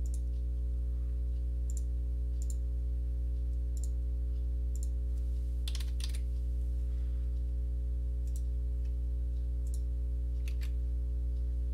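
Computer mouse clicks and keyboard keystrokes, about a dozen short clicks spaced irregularly, over a steady low electrical hum.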